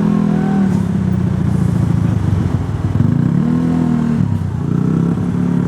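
Road traffic passing close by: vehicle engines, motorcycles among them, running continuously, with one engine rising and then falling in pitch about three to four seconds in as it goes past.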